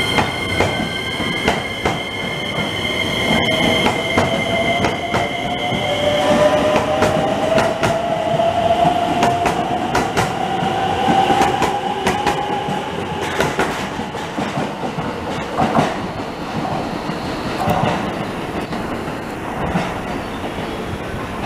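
JR West 287 series electric train moving along a station platform. Its motor whine rises steadily in pitch as it picks up speed, with repeated wheel clicks over rail joints. A high, steady wheel squeal stops about six seconds in.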